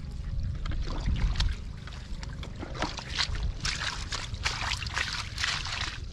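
Hands splashing and sloshing through shallow muddy water, a rapid run of small splashes that gets busier in the second half.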